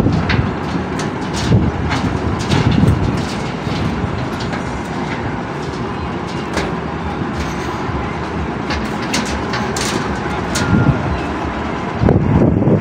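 Steady din of construction machinery running, with frequent metallic clicks and clanks on top and a louder rumble near the end.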